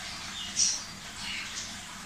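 A small bird chirping in the background: a few short, high chirps about a second apart over a faint steady hiss.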